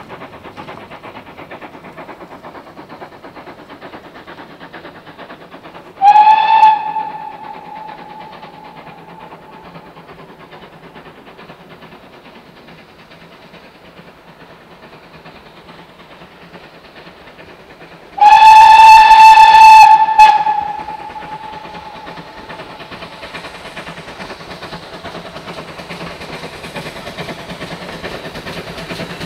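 A locomotive sounds two single-note blasts over the steady noise of a moving train: a short one about six seconds in and a longer one of about two seconds some twelve seconds later.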